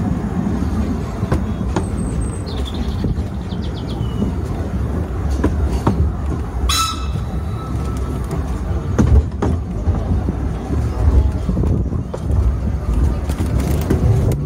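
Narrow-gauge railway train running along the track, heard from on board: a steady low rumble of the wheels with scattered clicks over the rail joints, and a brief high-pitched squeal about seven seconds in.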